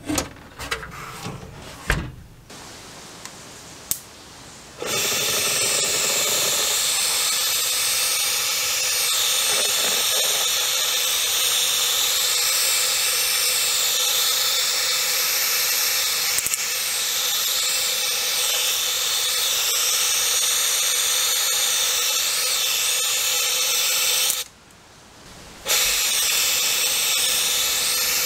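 A few metal clanks and knocks, then a handheld electric air tool blowing hard at close range: a loud rush of air with a motor whine whose pitch wavers slightly. It cuts out for about a second near the end and starts again.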